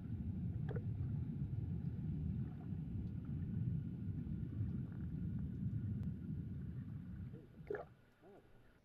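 Low, muffled rumble of water as heard from below the surface of a pool, with a brief splash near the end, after which it falls quiet.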